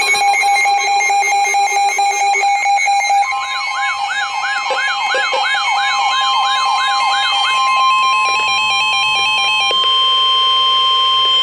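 Layered electronic alarm sounds: pulsing, beeping alarm tones, joined about three seconds in by a rapidly wailing electronic siren that stops after a few seconds. Under them runs a long steady single-pitch alert tone, the NOAA Weather Radio warning alarm tone, which is left sounding alone for the last few seconds.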